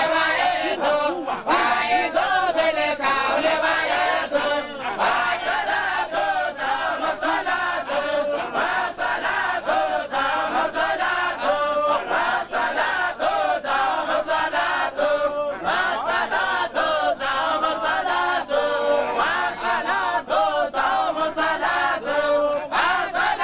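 Group of men chanting a Sufi religious chant together, led by one voice, with sharp rhythmic beats that match hand claps.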